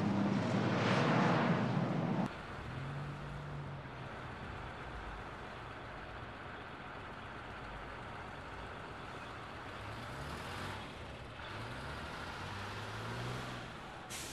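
Road traffic with a bus engine running; about two seconds in the sound drops to a quieter engine hum that revs up and down a few times.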